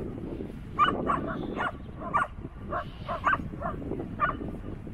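A dog barking in a quick, irregular run of about a dozen short, sharp yaps, over a steady low background rush.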